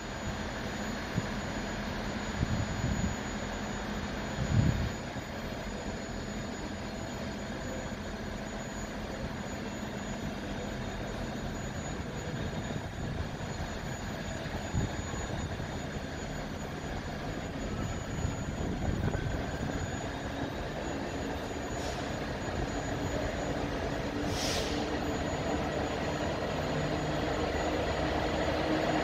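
Class 66 diesel locomotive's two-stroke EMD V12 engine approaching slowly, its steady drone growing louder over the last several seconds. A couple of dull knocks come about three and five seconds in, and a brief hiss about twenty-four seconds in.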